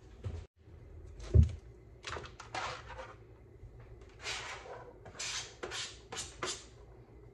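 Chopped onion and green pepper scraped off a plastic cutting board into a skillet in several short strokes, after a single dull knock about a second and a half in.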